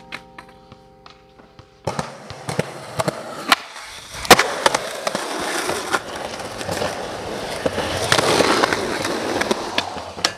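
Skateboard wheels rolling on rough asphalt, getting louder as the board comes closer, with sharp clacks from the board; one loud crack about four seconds in.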